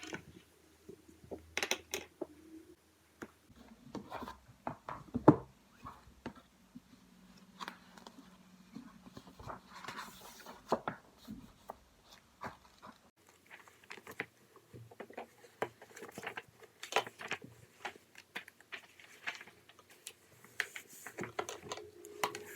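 Scattered small clicks, taps and rustles of objects being handled on a desk, with the sharpest knock about five seconds in.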